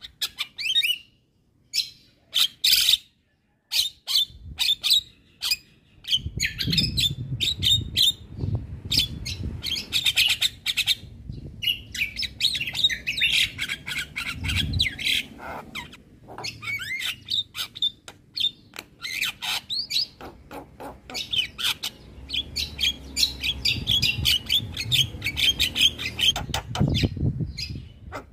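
Javan myna singing: rapid strings of chirps, whistles and harsh squawks, scattered at first and then near-continuous from about six seconds in, over a low rumble.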